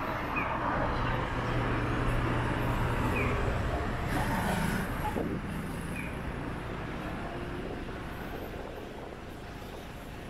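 City street traffic: a passing vehicle's engine hum, loudest in the first half and fading away over the second half. Three short high chirps sound about three seconds apart.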